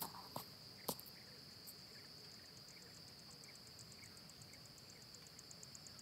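Faint, steady high-pitched insect chirring, with a fast, even ticking above it from about a second and a half in. A few soft clicks come in the first second.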